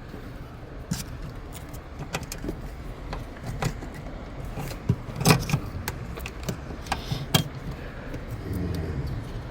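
Scattered sharp clicks and knocks of hands working at the seat's plastic wiring connectors, unclipping them, with the loudest clicks about five and seven seconds in.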